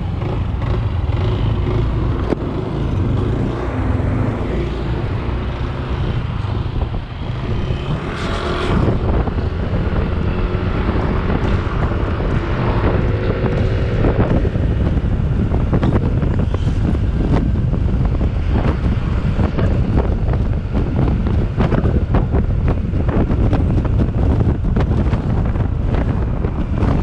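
Wind buffeting the microphone over a steady low rumble from a Yamaha NMax scooter on the move.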